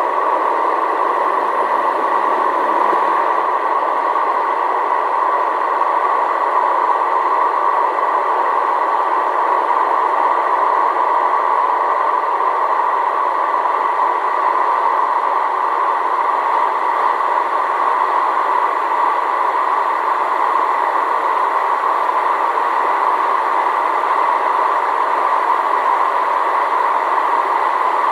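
Steady engine and air noise inside a small passenger plane's cabin in flight, an even, unbroken drone with a faint steady tone above it.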